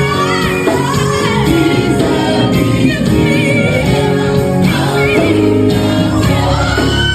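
Gospel worship song: several voices singing over instrumental backing with a steady bass.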